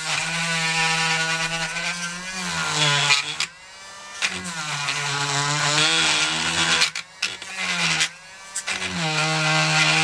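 Dremel rotary tool with a shaping bit running at high speed, cutting a hole through flexible magnetic sheet. A steady whine whose pitch sags as the bit loads up in the material, with short lulls near the middle and about three-quarters through.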